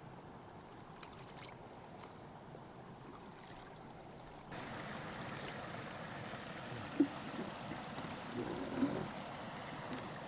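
Stream water running steadily, turning abruptly louder about four and a half seconds in, with a few short faint sounds near the end.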